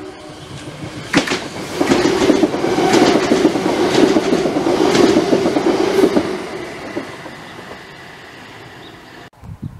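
Passenger multiple-unit train running past at speed, its wheels clattering over the rail joints over a steady rumble and drone. It builds quickly about a second and a half in, stays loud for about five seconds, then fades as the train moves away.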